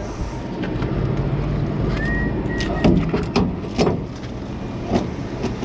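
A hand tool knocks against a burnt-out truck cab: four sharp knocks in the second half. Under them runs a steady low rumble, and a short high tone is heard about two seconds in.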